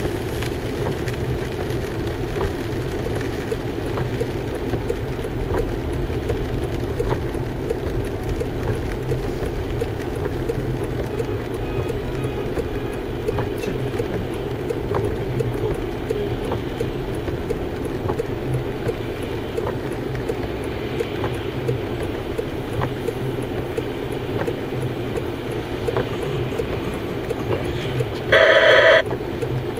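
Steady engine and road rumble inside a car's cabin in wet city traffic, with faint scattered ticks of rain on the car. Near the end comes one short, loud tone, like a car horn.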